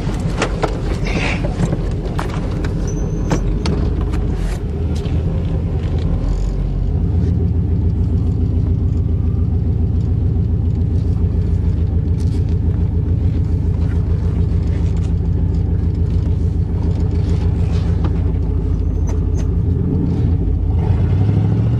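1988 Chevrolet pickup's engine heard from inside the cab while driving, running through a makeshift exhaust fitted after its catalytic converter was judged plugged. It pulls harder from about seven seconds in, with a few sharp clicks in the first few seconds.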